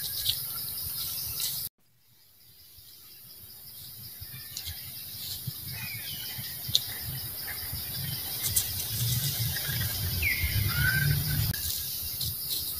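Outdoor forest ambience: scattered bird chirps over a steady, pulsing insect drone, with a low rumble underneath. The sound cuts out abruptly just before two seconds in and fades back up over several seconds.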